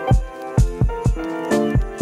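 Background music with a steady kick-drum beat about two times a second under a pitched melody.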